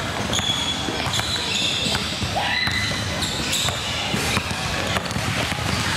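Basketball being dribbled on a hardwood gym floor, with repeated bounces and short high squeaks of sneakers on the court.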